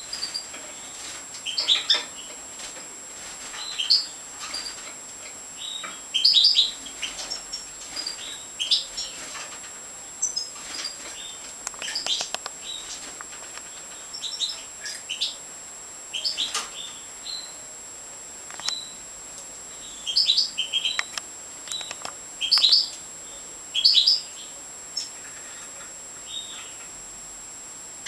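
European goldfinches of the major race calling in the aviary: short, high chirps and little clusters of chirps every second or two.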